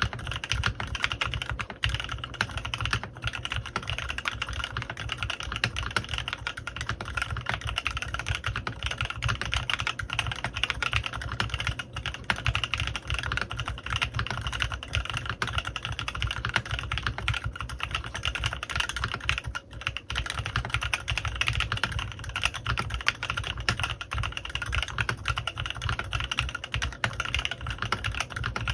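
Continuous fast typing on a CannonKeys Rekt1800 custom mechanical keyboard fitted with stock, unlubricated Kailh x Swagkeys Lavender prototype switches and PBTfans Resonance PBT keycaps: a dense, steady stream of key clacks.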